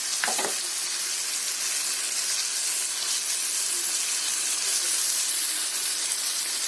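Stuffed tomatoes frying in oil in a kadai on a very low flame, sizzling steadily.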